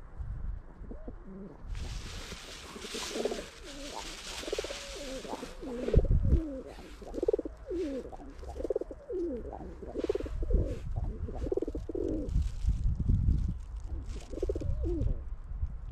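Feral pigeons (rock doves) cooing over and over, several birds overlapping in low burbling calls. A rushing hiss runs from about two to five seconds in, and a thump at about six seconds is the loudest moment.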